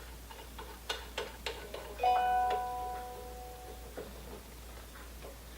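Light clicks and taps of handling, then a single metallic ding about two seconds in that rings out and dies away over a second or two.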